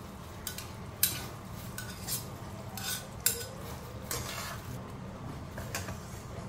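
Metal spatula clinking and scraping against a black iron kadai while stirring a thick potato curry, in scattered short strokes over a steady low hum.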